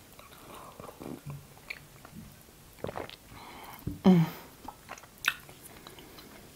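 Close-up mouth sounds of a woman sipping hot tea from a mug and swallowing, with small wet clicks. A brief pitched hum-like vocal sound about four seconds in, and a sharp click a little after five seconds.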